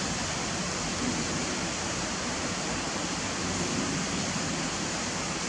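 Steady rain falling outside, heard from indoors as an even, unbroken hiss.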